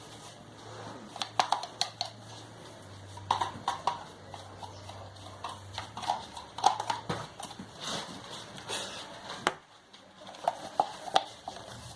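Irregular clicks and light knocks of small fan parts and tools being handled during reassembly of an electric fan, some with a brief tinny ring.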